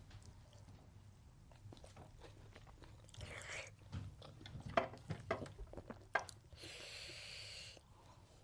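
Close-up mouth sounds of a person chewing food, with a run of crisp crunches and mouth clicks in the middle, and two breathy hisses, one before the crunching and a longer one after it.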